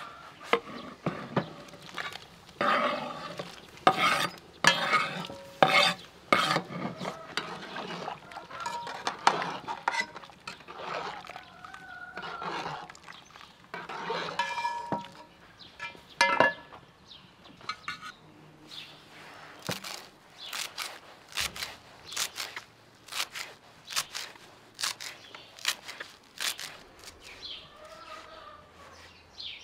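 A metal ladle knocking and scraping against a large metal pot of soup, with clinks, then a knife chopping fresh greens on a wooden block in quick, even strokes over the second half.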